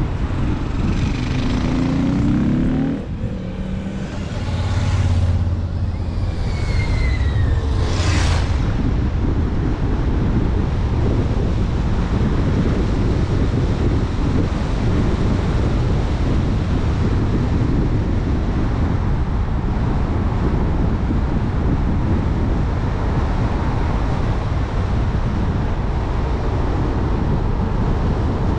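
Steady rushing wind and road noise from a car driving along a mountain road, heaviest in the low rumble. In the first few seconds a few pitches slide up and down, and a short whoosh passes about eight seconds in. After that the rushing goes on evenly.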